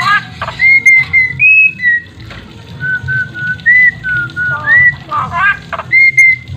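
A Javan myna (jalak kebo) calling: a string of short, clear whistled notes, some sliding up and some held level, broken twice by a harsh chattering call, once at the start and again about five seconds in.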